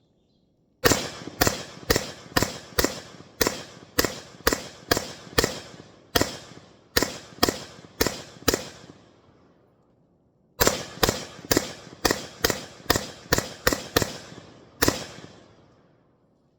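Bravo Company (BCM) AR-15 with an 11.5-inch barrel firing semi-automatic, two strings of shots at about two a second, each with a short echoing tail. About fifteen shots, a pause of roughly two seconds, then about eleven more.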